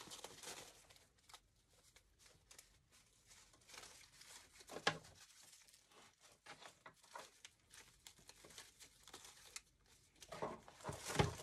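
Rustling and crinkling of an artificial flower stem and wire-edged ribbon being handled and tucked into a grapevine wreath, with scattered small clicks. A sharper rustle comes about five seconds in and a louder one near the end.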